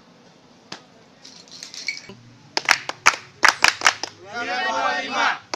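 A group of people clapping their hands in a quick run of sharp claps, starting about halfway through. The clapping is followed near the end by voices calling out together.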